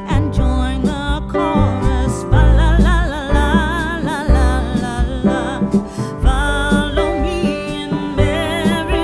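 Background music: a song with a sung melody over guitar and a steady beat.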